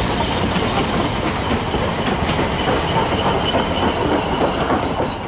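Narrow-gauge railway carriages rolling past on steel rails, the wheels clicking over the rail joints, with a thin high wheel squeal on the curve.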